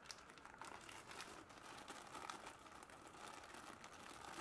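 Faint crinkling of a small clear plastic zip bag being handled and opened, with light scattered clicks from the brass lantern generators inside it.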